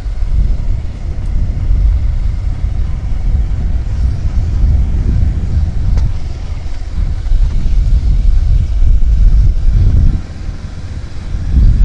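Heavy wind rumble and buffeting on the microphone of a moving two-wheeler, with road and vehicle noise underneath. The buffeting eases briefly about ten seconds in, then comes back.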